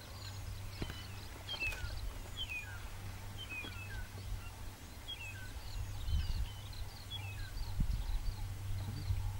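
Birds calling in the bush: many short, quick chirps repeated throughout, over a steady low rumble with a few dull low thumps.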